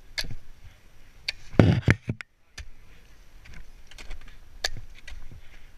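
Ice axes striking a frozen waterfall during a climb: a string of sharp knocks and ticks, the loudest a heavy double strike about a second and a half in.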